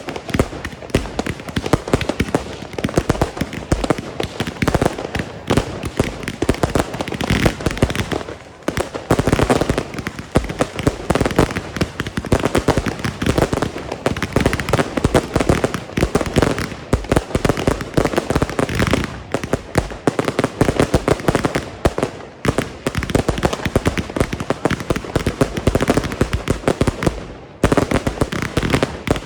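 Consumer firework batteries going off in a dense, unbroken run of shots, bangs and crackling, with brief lulls about eight seconds in and again near the end.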